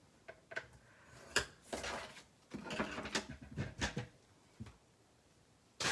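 Card stock being handled and scored on a plastic scoring board: a few sharp clicks and taps, the loudest about a second and a half in, then a second or so of scratchy scraping as the scoring stylus runs along the groove.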